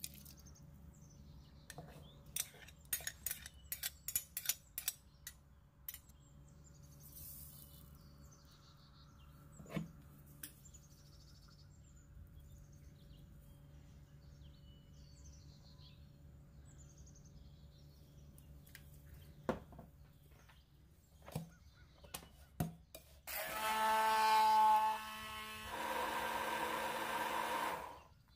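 A run of sharp clicks and knocks of kitchen utensils, then near the end an electric blender runs for about five seconds, changing pitch partway, and cuts off suddenly.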